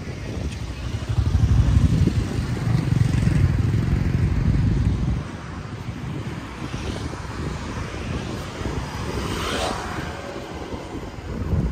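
Wind buffeting the microphone as a low rumble, strongest in the first half, with road traffic underneath and a vehicle passing briefly near the end.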